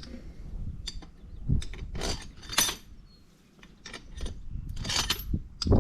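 Irregular metallic clinks, scrapes and light knocks of steel parts being handled on the engine: head bolts with crush washers being sorted and set into the cylinder head.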